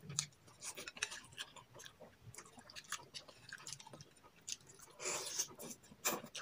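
Close-up eating sounds: chewing, with scattered small clicks and a brief noisy stretch about five seconds in.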